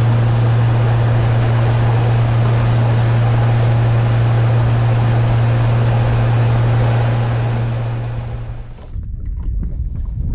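Bass boat's outboard motor running at speed: a loud, steady low hum under the rush of wind and water. It stops abruptly near the end, leaving a quieter low rumble and a few faint clicks.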